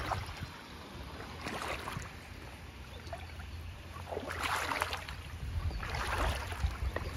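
Small boat moving slowly through shallow, weedy water, with a steady low hum under it and three short rushes of water noise about a second and a half, four and a half and six seconds in.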